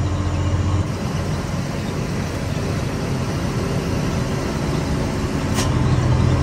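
Cab noise of a Scania 113 truck descending slowly on a wet road: the six-cylinder diesel runs steadily under a wash of tyre and road hiss. Its low hum weakens about a second in and comes back strongly near the end, and there is one sharp click about five and a half seconds in. The truck's exhaust pipe has a hole in it.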